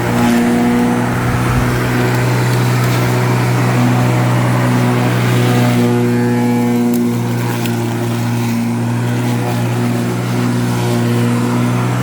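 Gas lawn mower engine running steadily under load while cutting grass.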